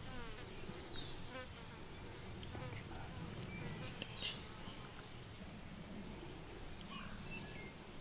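Quiet outdoor ambience: an insect buzzing, with a rapid trill of falling notes near the start, a sharp high chirp about halfway, and a few short bird chirps near the end.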